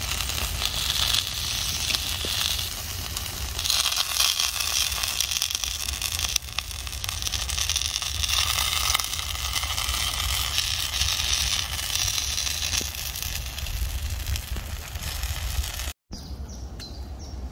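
Campfire crackling steadily, a dense hiss of small pops over a low rumble. It stops abruptly near the end.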